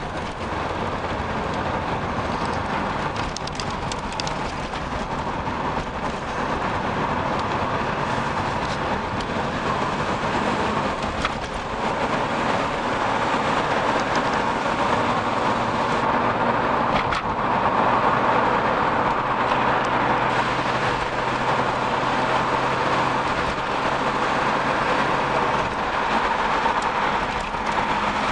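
Road and engine noise from inside a moving car's cabin: a steady rush of tyres and wind over a low engine hum, with a few light knocks and rattles.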